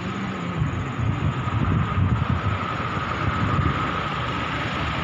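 Steady low rumble of road traffic, a motor vehicle's engine running close by.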